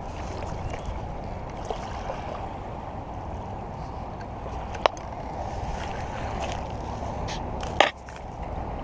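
Steady rushing noise of wind and shallow water at the shoreline, with a few sharp clicks and a louder knock near the end from handling the spinning rod and reel.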